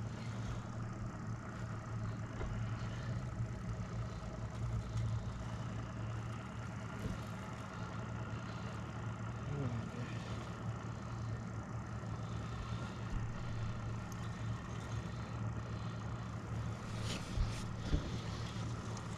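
Boat motor humming steadily at a low pitch, with a couple of sharp clicks near the end.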